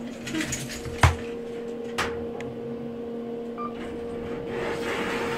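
Steady electrical hum inside a stainless-steel elevator car. A sharp click about a second in and a lighter knock about two seconds in come as the elevator panel is worked with a key in hand.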